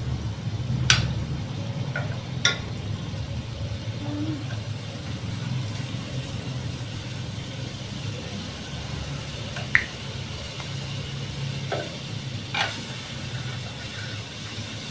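Butter sizzling as it melts in a hot pan, with a metal spoon clinking against the pan four or five times as it pushes the butter around. A low steady hum runs underneath.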